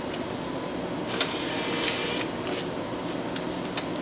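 Bill acceptor of a change machine with an MEI bill recycler taking in five-dollar bills, a few short mechanical feed noises in the middle as notes are drawn in and rolled into the recycler, over a steady background hum.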